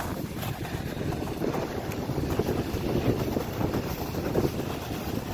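Wind rushing over the microphone while skiing downhill, with the steady hiss and scrape of skis sliding over packed snow.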